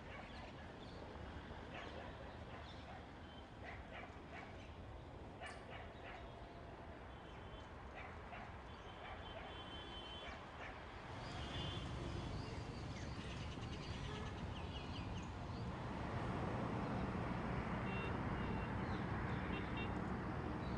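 Outdoor ambience: a steady low background rumble with small birds chirping briefly now and then and a few scattered clicks. The rumble gets louder about eleven seconds in and again about sixteen seconds in.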